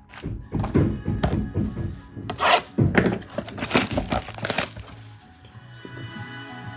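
Trading card packs being torn open and the cards handled, a run of sharp rips, rustles and knocks on the table, loudest about halfway through, over background music.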